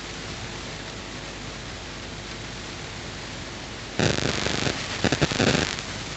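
Steady hiss, then about four seconds in a sudden louder rustling with scattered knocks and crackles: handling noise of a smartphone being picked up and moved.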